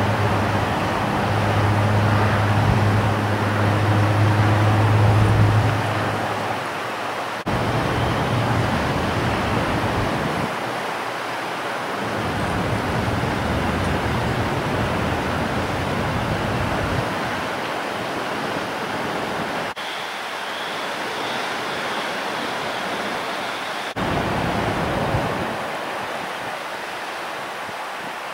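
Strong wind buffeting the microphone, a steady rushing noise that changes abruptly several times, with a low steady hum under it for about the first six seconds.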